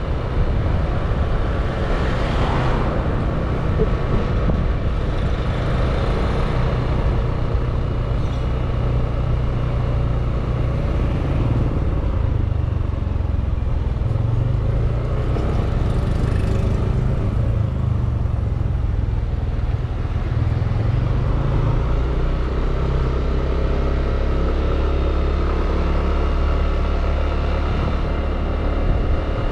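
Road noise from a motor scooter being ridden through town traffic: a steady low rumble, with a few brief swells as other vehicles go by.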